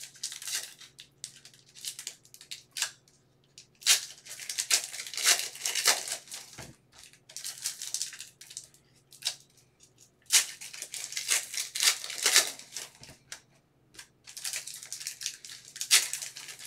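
Foil trading-card pack wrappers crinkling and being torn open by hand, in crackly bursts of a second or two with short pauses between.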